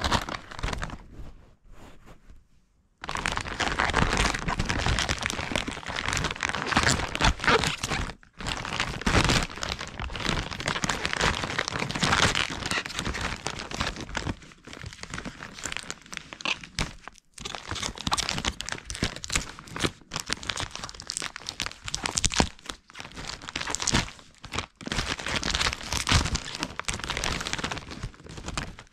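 Packaging being crinkled, cracked and torn open by hand in dense, irregular bursts starting about three seconds in, with a couple of brief pauses. It is a struggle because the item is glued to its packaging.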